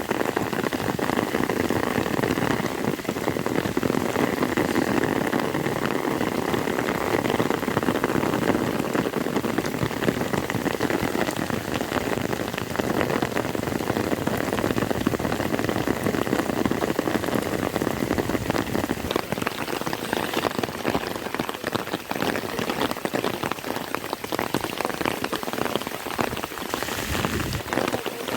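Heavy rain falling steadily: a dense, even hiss made of countless small drop hits on a surface.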